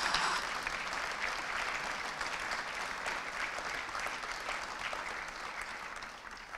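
Audience applauding in a hall, a steady clapping that slowly fades toward the end.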